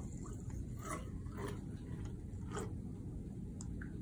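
Aerosol can of shaving cream dispensing foam into a glass of water: faint, with a few soft sputtering clicks.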